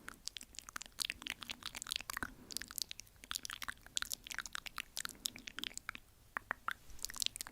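Close-miked ASMR mouth sounds: quick, wet clicks and taps in rapid, irregular runs, thinning to a few separate clicks about six seconds in before picking up again.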